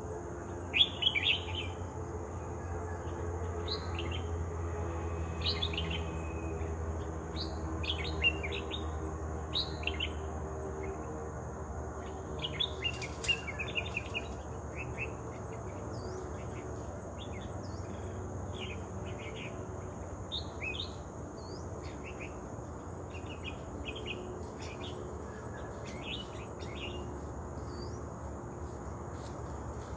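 Bulbul (merbah) giving short chirps in scattered bursts, over a steady high insect drone. There is a sharp click about halfway through.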